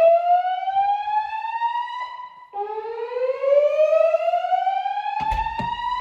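Fire alarm voice-evacuation speakers sounding a whoop tone: a rising sweep that climbs for about three and a half seconds, breaks off, and starts again, heard twice. This is the evacuation alert tone played between the spoken messages. A brief knock comes near the end.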